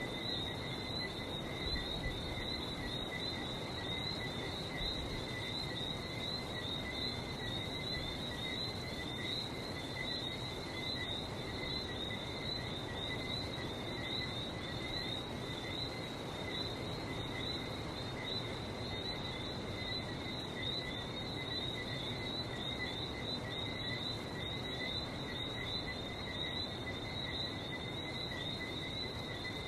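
A dense, continuous chorus of many whistling frogs (Johnstone's whistling frogs, the common small frog of Barbados) giving high, short chirping whistles that overlap without pause, over a steady low rush of the sea.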